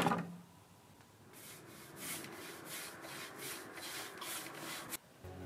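A sharp knock at the very start, then a paintbrush stroking paint onto wooden boards: soft, quick swishes about three or four times a second.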